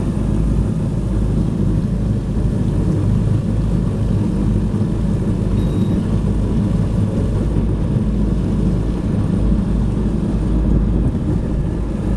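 Very loud wind buffeting the microphone on a moving boat: a steady, rumbling roar that drowns out everything else.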